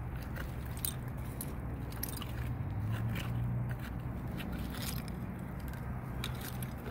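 Hand digging in privy fill: tools scrape and crunch through loose soil in short, irregular strokes, over a steady low hum.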